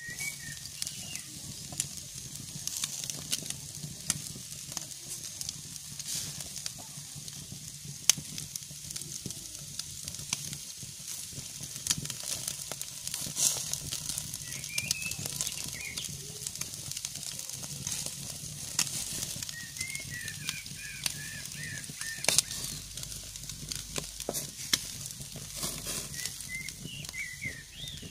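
Bacon-wrapped meat skewers sizzling in a wire grill basket over glowing charcoal, a steady hiss broken by frequent sharp pops and crackles. Small birds chirp in short bursts a few times.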